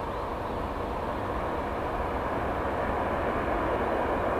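Airbus A380 on final approach with landing gear down, its four jet engines giving a steady noise with a faint whine, growing louder as it comes closer.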